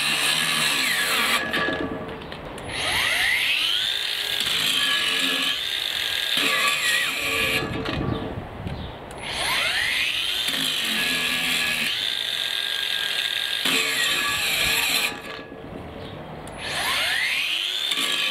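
Cordless 18 V brushless angle grinder running, switched off briefly three times and spinning back up each time with a steeply rising whine.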